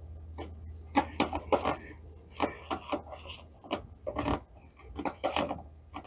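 Irregular rubbing, rustling and small knocks from hands working a greasy rag over the frame of an off-road vehicle's door, over a steady low hum.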